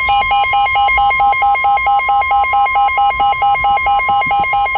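NOAA Weather Radio warning alarm tone, a steady 1050 Hz tone signalling that a warning broadcast follows. Over it a second, lower, buzzy beep pulses about four times a second.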